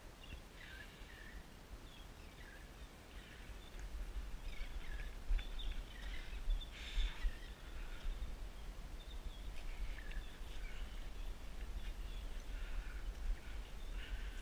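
Wind buffeting the microphone as a steady low rumble, with scattered short, high bird chirps calling on and off.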